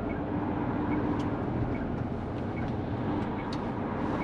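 Hino semi-tractor heard from inside its cab while moving slowly in city traffic: steady engine and road noise with a low hum, and a faint ticking about twice a second.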